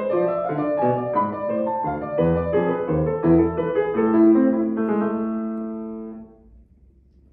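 Steinway grand piano played solo: a run of quick notes with deep bass notes about two seconds in, ending on a held final chord that rings on and then stops abruptly about six seconds in.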